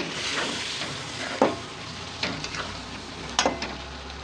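Chicken curry masala frying in a kadhai with a steady sizzle while a spoon stirs it, scraping and knocking against the pan about three times.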